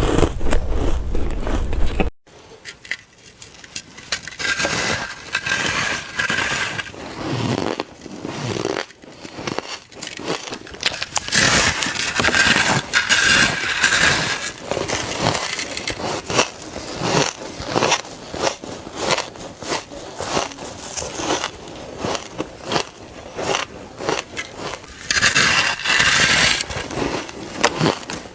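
Ice and freezer frost being bitten and crunched close to the microphone: a dense, irregular crackle of small cracks, with some bites giving a squeaky tone. The sound changes suddenly about two seconds in.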